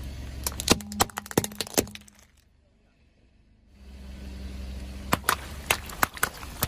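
Car tyre crushing a white plastic toy figure, which cracks and snaps in a quick series of sharp breaks over a low rumble. After a short pause, the tyre rolls onto a row of water balloons filled with water beads, which burst one after another in about six sharp pops.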